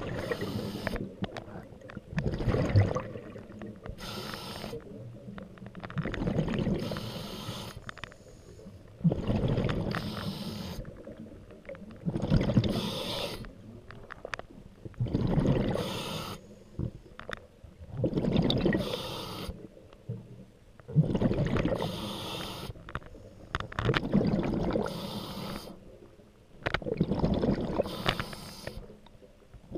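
Scuba diver breathing through a regulator underwater, about ten breaths, one roughly every three seconds. Each is a short hissing inhale followed by a longer burble of exhaled bubbles.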